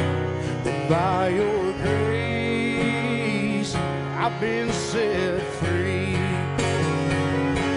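Instrumental break of a country gospel song: a fiddle plays a sliding, wavering melody over strummed acoustic guitars.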